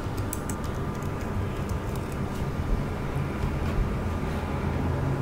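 Keystrokes on a computer keyboard: a quick run of light clicks through the first two and a half seconds, then stopping. A steady low rumble of background noise runs under them.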